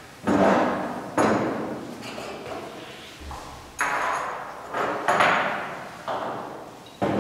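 Glass beakers and bottles being set down and moved on a lab bench: about six sharp knocks and clinks, each trailing off in the room's echo.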